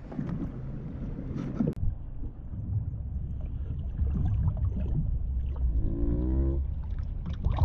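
Water splashing and lapping against a kayak's side as a sea bass is held in the water and released, under a low rumble of wind on the microphone. A short pitched hum sounds about six seconds in.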